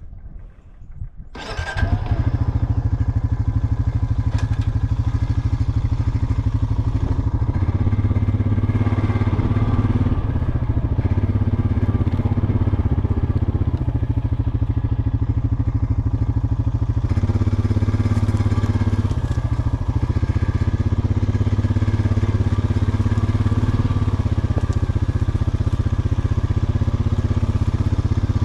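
A vehicle engine comes in abruptly about a second and a half in, then runs steadily as the vehicle drives across a field, the pitch and level shifting slightly now and then.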